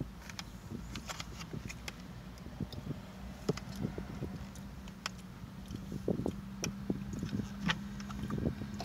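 Close-up chewing of a mouthful of salad, with scattered small wet clicks and crunches of lettuce over a low steady rumble.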